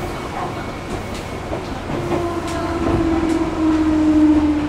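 Seibu 4000 series electric train running, heard inside a motor car: a steady rumble with a few sharp rail clicks. From about two seconds in a motor hum rises in level and sinks slightly in pitch.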